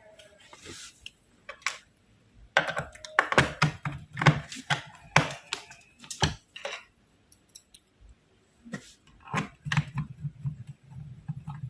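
Irregular plastic clicks and taps of a screwdriver and small screws being worked into the plastic base of an Acer laptop as its bottom cover is screwed back on, in clusters with short pauses between them.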